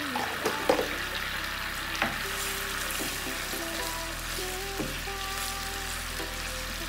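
Tomato sauce sizzling as it fries in a nonstick frying pan, stirred with a wooden spoon, with a few sharp clicks along the way.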